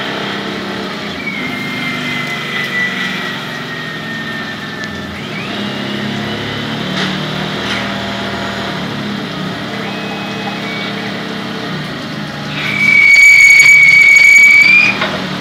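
Tormach 15L CNC lathe running a production cycle: the spindle turns and flood coolant sprays while a tool cuts the outside of DOM steel tubing. There is a steady hum, and a fainter whine falls slowly in pitch over the first few seconds. Near the end a loud, steady high-pitched squeal lasts about two seconds and is the loudest sound.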